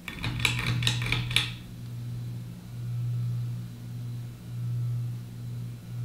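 A few sharp clicks with a light rattle in the first second and a half, as of the fan's pull-chain switch being worked. Then the Global Winds/SMC DC42 ceiling fan's motor starts up with a steady low hum that swells and fades about every second and a half. The heavy motor hum is typical of 90s SMC fans.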